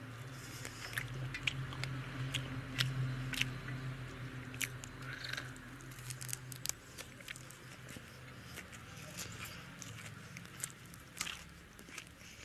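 Close-up mouth sounds of eating: wet chewing and biting with many sharp crisp clicks as fresh coriander sprigs are bitten off and chewed. A low hum underlies the first half and stops about halfway through.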